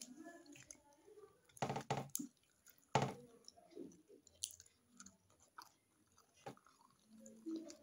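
Close-up chewing of butter naan dipped in curry, with soft wet mouth sounds and a few sharp, loud clicks of the lips and teeth, the loudest about two and three seconds in.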